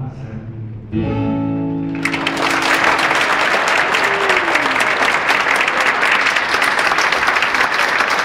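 An acoustic guitar strums a final chord about a second in, and it rings briefly. About two seconds in, loud audience applause breaks out and continues steadily.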